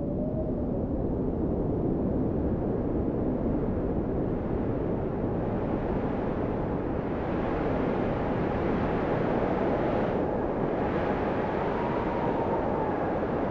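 Wind buffeting a phone's microphone: a steady low rumbling rush, with a faint wavering tone drifting above it.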